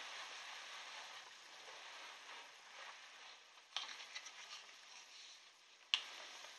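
Faint room hiss with a small click and a few light ticks about four seconds in, and one sharp click near the end.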